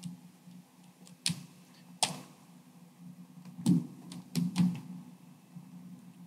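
Computer keyboard keys being typed, a series of irregular clicks with several louder keystrokes, over a steady low hum.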